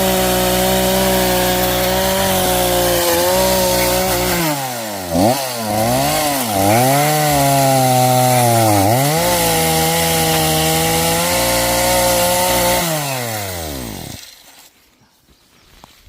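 Two-stroke chainsaw running hard and cutting into wood. Its pitch dips and recovers several times as the chain bites in, then the engine winds down and stops near the end.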